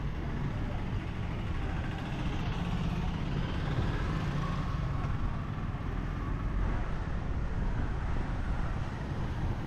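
Street traffic: motor vehicles, including tuk-tuks, running and passing, a steady low rumble of engines and road noise.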